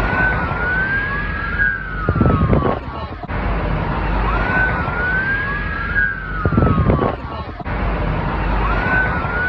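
Police siren wailing in overlapping rising and falling sweeps. The same few-second pattern repeats about every four and a half seconds, as in a loop, over a steady noisy background with a low hum.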